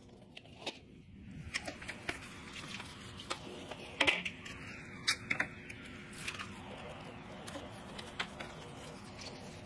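Galvanized steel duct fittings being handled and pushed together: scattered light metallic clicks, knocks and scrapes, the loudest about four seconds in and again around five seconds.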